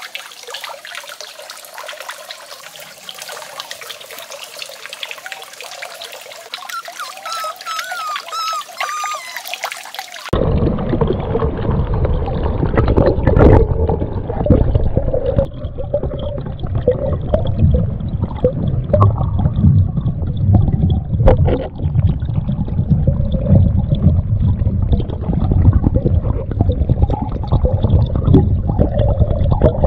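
Water trickling from a spout into a small pond, with a few high whistled notes partway through. About a third of the way in, it cuts to a louder, muffled low rumble and bubbling heard through an underwater camera.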